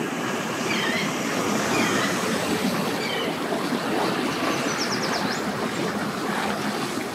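Personal watercraft idling at low speed, a steady rough rumble with water churning behind it. Short bird chirps sound faintly over it in the first few seconds.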